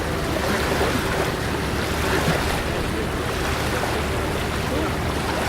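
Beach ambience: surf washing steadily, with faint scattered voices of people in the distance.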